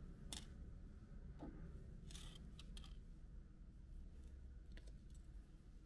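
Very quiet room hum with a few faint small clicks and ticks from fingers handling beadwork of acrylic beads strung on nylon fishing line.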